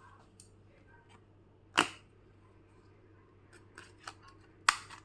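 Two sharp cracks about three seconds apart, with a few faint clicks between them, heard while the crisp microwave-roasted papad is checked.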